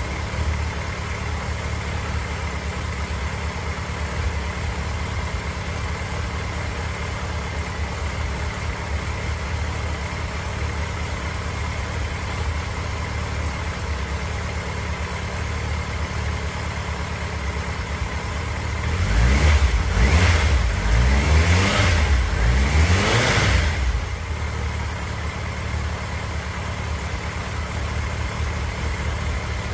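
2006 Kawasaki Zephyr 1100's air-cooled inline-four engine idling steadily, then blipped through a few quick revs that rise and fall about two-thirds of the way through before it settles back to idle.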